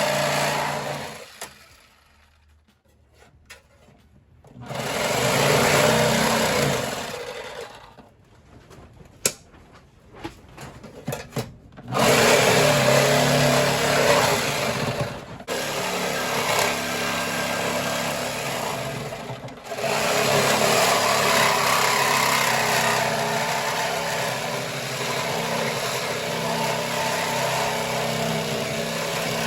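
A handheld power tool's motor running in stretches of a few seconds, cutting out and starting again several times, with a few sharp knocks in one of the pauses, while sanding the engine bay down for primer.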